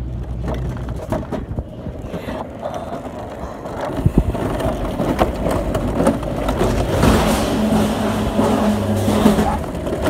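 Mountain coaster sled rolling down its tubular steel rail: wheels rumbling and clattering, growing louder about four seconds in as it gathers speed, with a steady hum in the running gear near the end.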